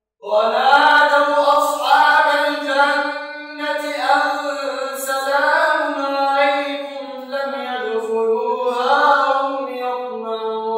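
A man reciting the Quran in a melodic, chanted tajweed style, with long held notes that glide up and down. The voice comes in after a brief silence at the very start.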